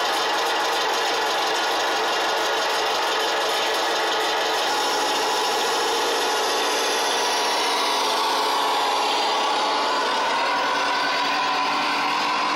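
Recorded IFA W50 truck diesel engine sound played by an RC model's Beier sound module through small loudspeakers. It runs at a steady, raspy idle, and the note rises in the second half as the model pulls away.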